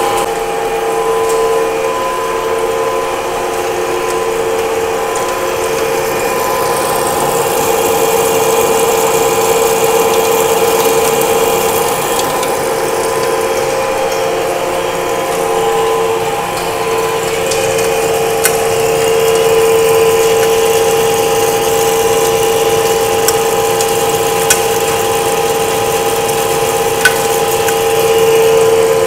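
Large manual engine lathe taking a heavy roughing cut on a solid 1045 steel bar with a carbide insert: a steady whine from the cut and the machine, with a few sharp ticks in the second half.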